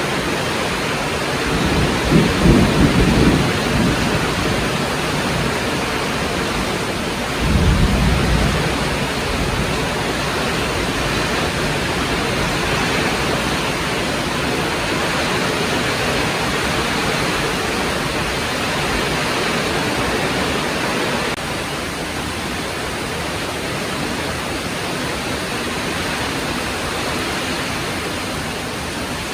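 Heavy rain falling steadily, with two low rumbles of thunder, the louder about two seconds in and a second about seven seconds in.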